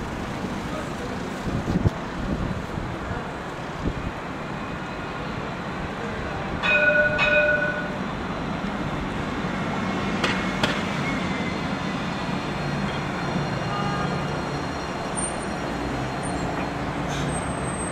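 Alstom Citadis 302 tram approaching and pulling into the stop. Two short toots of its warning horn come about seven seconds in. A steady hum and thin high whine from its electric drive build as it draws close.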